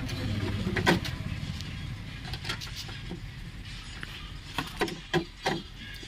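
Scattered sharp clicks and knocks as a Maruti Zen's tailgate lock is set in place and bolted to the hatch, the loudest about a second in and a run of them near the end. A low vehicle rumble underneath fades after about a second.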